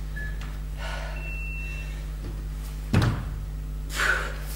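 A single thud about 3 s in as a person drops into the plank of a burpee on a wooden floor, followed about a second later by a sharp exhale. A steady low hum runs underneath.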